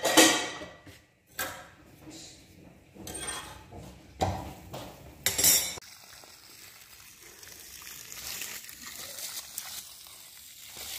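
Kitchen clatter of dishes and utensils: several sharp clinks and knocks over the first six seconds. Then a faint steady hiss of water spraying from a garden hose.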